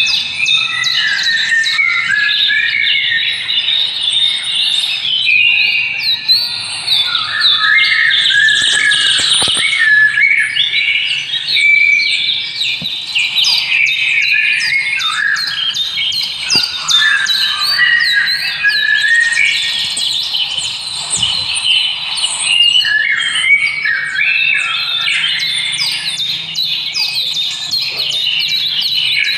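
Many small birds chirping together, a dense run of short, overlapping calls without a break.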